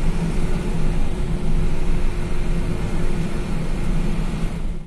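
Steady engine drone and road noise of a moving medium-size bus, heard from inside the cabin.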